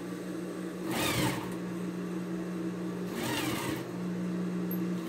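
Electric sewing machine running, stitching a fabric bias strip onto a quilted piece: a steady motor hum, with two brief louder rushes, about a second in and after about three seconds.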